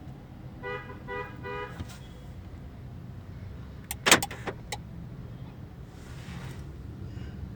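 Newly installed car security alarm giving three short chirps in quick succession as it is tested. About four seconds in comes a loud clunk of the central-locking door actuators.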